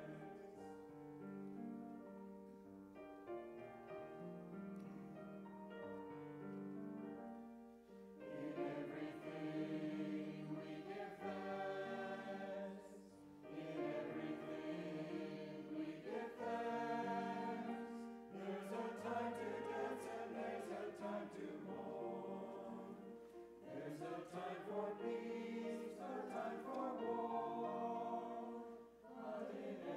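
Mixed church choir singing an anthem with piano accompaniment. It is softer for the first several seconds, then sings in fuller phrases with short breaks between them.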